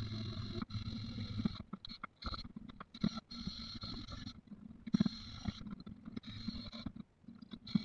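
Cordless drill spinning a wire brush against the cast-iron body of a Stanley No. 45 combination plane held in a vise, scrubbing it clean. The brushing stops and starts, with a few sharp knocks in between.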